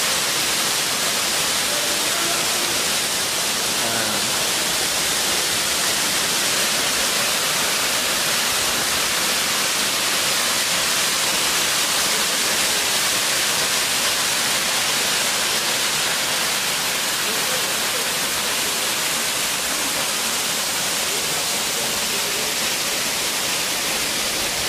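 Waterfall rushing steadily down a rock face: an even, unbroken hiss of falling and splashing water.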